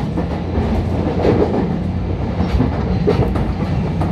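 Running sound inside the motor car of a renewed JR Kyushu 811 series electric train: a steady low hum from the running gear over the rumble of wheels on rail, with a few clacks over rail joints.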